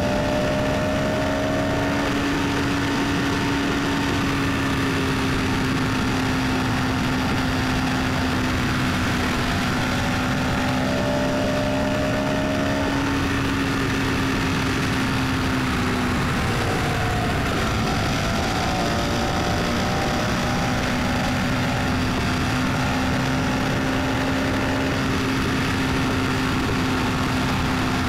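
Car engine and road noise while driving: a steady engine hum with an even background rush. The engine note dips and wavers briefly about halfway through, then settles back to the same steady pitch.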